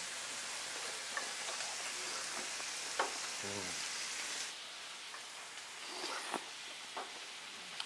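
Duck meat sizzling on a tabletop grill plate, a steady frying hiss, with a few light clicks of utensils; the hiss thins out about halfway through.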